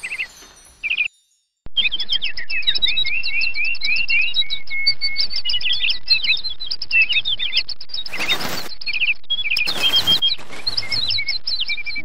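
Small songbirds chirping and twittering in quick, overlapping high chirps, starting after a short silence about two seconds in. Two brief rushing noises cut across the chirping about eight and ten seconds in.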